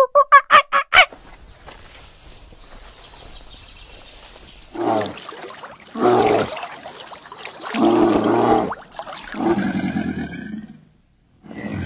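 Three loud, low growls, typical of a brown bear, come about five, six and eight seconds in. They follow a fast run of short calls in the first second, and a muffled growl of another kind comes near the end.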